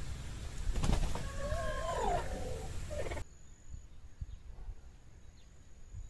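A farm animal calls once, a pitched call of about two seconds that rises and falls, over a low outdoor rumble. About three seconds in the sound cuts abruptly to a quieter background with a thin, steady high tone.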